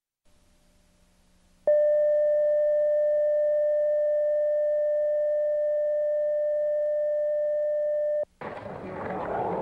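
A steady electronic tone holds one pitch for about six seconds, starting and stopping abruptly, like a video test tone. Right after it, noisy outdoor ambience cuts in.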